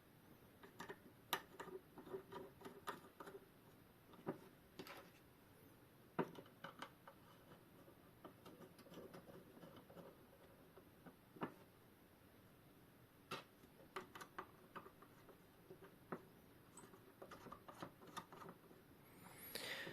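Faint, irregular clicks and light taps of small metal clock-movement parts being handled and fitted together, with a short clatter near the end.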